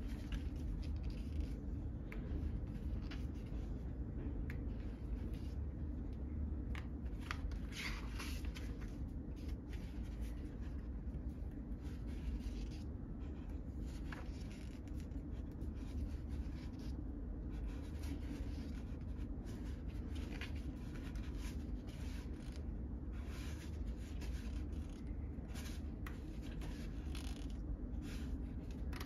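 Photobook pages being turned by hand, with paper rustling and crackling at irregular moments over a steady low hum.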